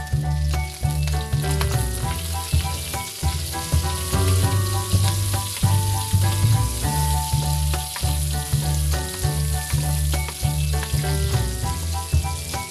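Pork and sliced red onion sizzling as they sauté in an aluminium wok, stirred with a spatula, under background music with a steady bass line.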